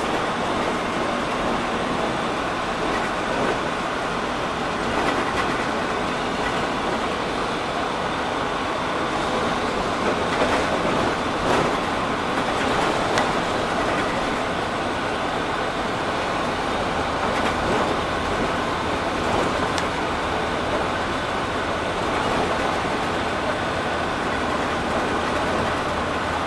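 Cabin noise of a city bus under way on a highway: a steady drone of engine and road noise, with a few short knocks and rattles around the middle.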